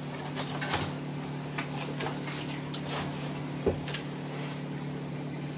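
Light clicks and knocks of Japanese saw handles and blades being handled during unboxing, with one duller knock a little past halfway, over a steady low hum.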